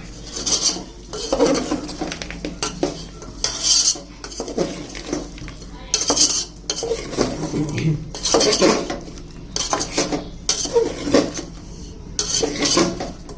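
Metal spoon scraping and clanking against a cooking pan in repeated stirring strokes, about one every second or two, while chicken is stir-fried.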